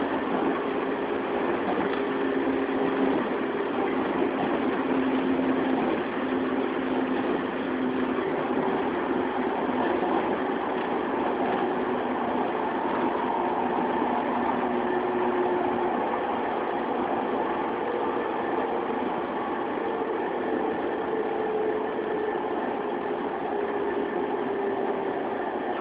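Interior running sound of a JR 115-series resistance-controlled electric train, recorded in motor car MoHa 115-1081: steady wheel-and-rail rolling noise with a low traction-motor and gear hum whose pitch shifts a little as the speed changes.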